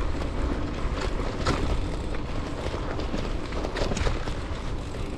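Mountain bike riding over a dirt trail: tyres rolling and the bike rattling with frequent small clicks and knocks over bumps, under a steady rumble of wind on the microphone.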